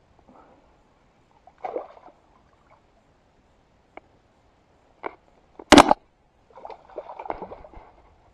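A hooked fish splashing and sloshing at the surface as it is played close in on a bent rod, in separate bursts, the loudest a sharp splash about two-thirds of the way through, followed by a longer stretch of sloshing.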